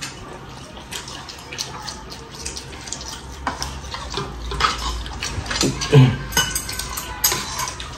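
Metal spoon and chopsticks clinking and scraping against ceramic bowls and plates during a meal, in scattered light clicks. A short vocal sound comes about six seconds in.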